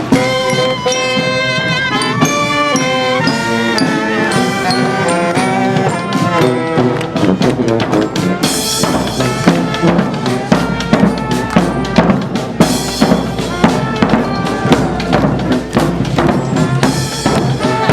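Brass street band playing: horns carry a melody over drums, and after about six seconds the drums and percussion take over with a dense, steady beat.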